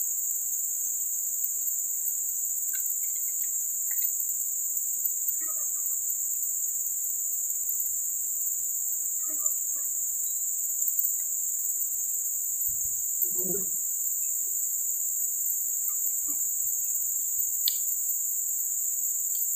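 Steady, high-pitched insect chorus droning in two constant bands, with faint scattered bird chirps and a brief low sound about thirteen seconds in.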